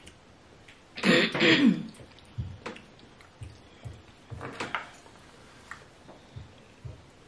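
A person clearing their throat in two quick loud pushes about a second in, then soft, scattered eating sounds: small mouth smacks and clicks as the pair eat pounded yam and soup by hand.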